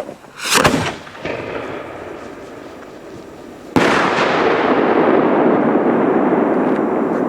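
Fireworks going off: a sharp bang about half a second in. About three seconds later a sudden blast starts a dense, steady rushing noise that runs on for several seconds.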